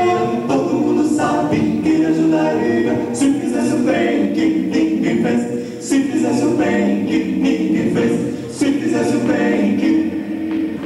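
Male vocal quartet singing a cappella in close harmony through microphones, holding long notes; the singing dies away near the end.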